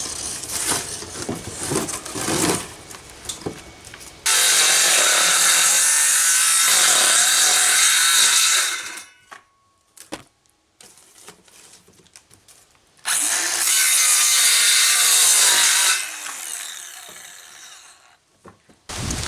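Power tool cutting a piece of wafer board (chipboard): some clatter of handling, then two long steady cuts of a few seconds each, the second winding down slowly as the tool stops.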